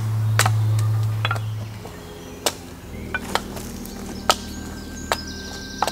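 Axe chopping stop cuts into a green-wood spoon blank on a chopping stump: a series of sharp wooden knocks, roughly one a second, with background music underneath.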